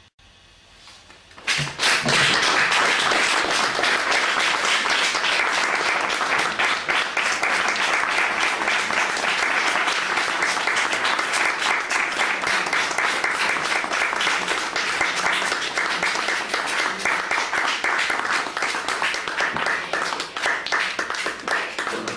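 Audience applauding, a dense patter of hand claps that starts suddenly about a second and a half in and dies away at the very end.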